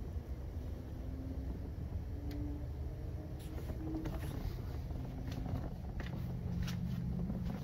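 Low steady rumble of distant road traffic, with a few faint clicks.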